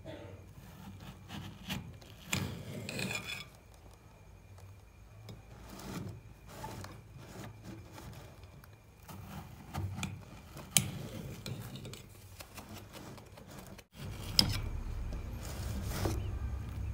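Kitchen knife sawing and scraping through watermelon rind and flesh on a plate, in irregular rasping strokes, with a couple of sharp knocks.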